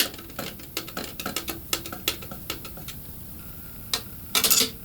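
Screwdriver turning the CPU cooler's mounting screws: a quick, irregular run of small metallic clicks, several a second. About four and a half seconds in comes a louder, longer scrape, the loudest sound here.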